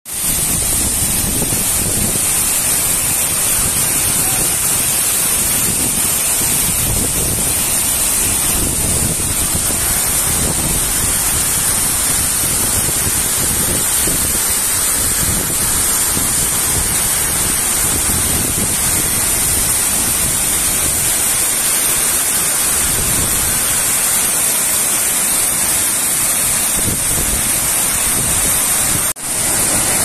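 Large waterfall's steady rushing of falling water, a dense even noise that drops out for a moment near the end.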